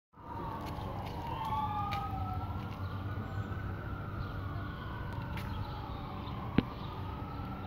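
A siren wailing, its pitch sliding slowly up and down, with two wailing tones overlapping at times. A single sharp click about six and a half seconds in.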